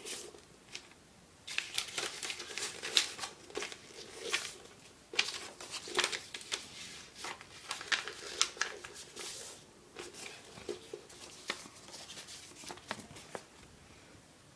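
A sheet of paper being folded and creased by hand: irregular rustling and crinkling with short sharp crackles as the folds are pressed, dying away near the end.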